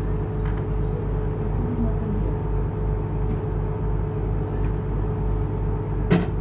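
Excursion boat's engine running steadily, heard on board as a low, even throb with a constant hum. A single sharp click just before the end.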